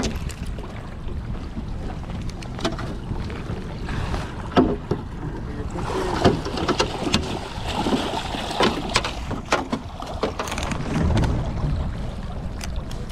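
Steady rush of wind on the microphone, with scattered sharp knocks and clicks from handling a fish landing net and fishing pliers against the boat.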